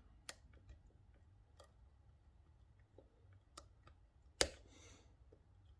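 Faint ticks and sharp clicks of a lock pick working the spring-loaded security pins inside a PACLOCK 90A Pro padlock under tension, a few louder clicks spaced about a second apart, the loudest a little past four seconds in, followed by a brief scrape.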